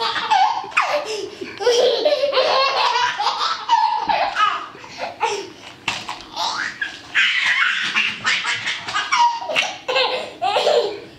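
A toddler laughing hard in repeated bursts of belly laughter.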